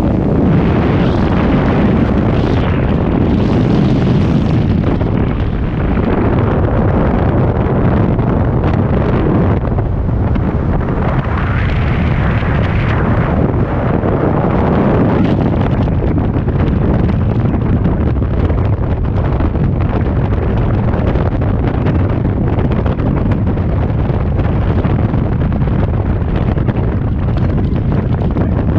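Freefall wind blasting over a helmet camera's microphone: a loud, steady rush and rumble. It is hissier for the first few seconds, around the exit from the aircraft door, then settles into an even rush.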